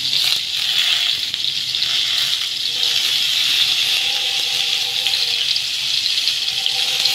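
Masala-stuffed brinjals frying in hot mustard oil in a kadhai, a steady even sizzle.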